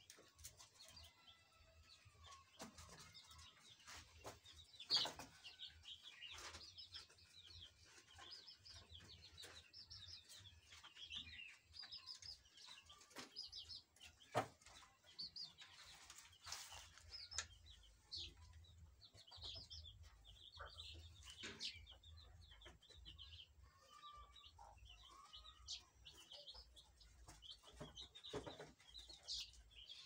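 Chickens peeping and chirping, with many short high-pitched calls throughout. A few sharp knocks stand out, about five, fourteen and seventeen seconds in.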